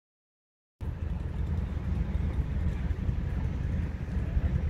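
Silence, then an outdoor low rumble cuts in suddenly just under a second in and runs on steadily, flickering in level.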